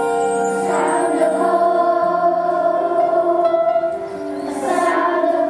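Children's choir singing with instrumental accompaniment. The voices come in about a second in, drop away briefly around four seconds, then come back in.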